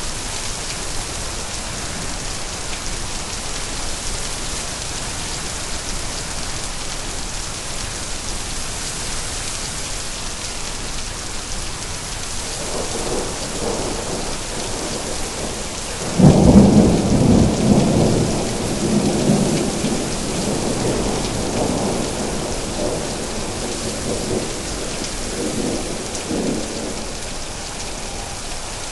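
Steady heavy rain with a thunderclap: a low rumble builds about halfway through, breaks into a loud sudden crack, then rolls on and fades away over about ten seconds.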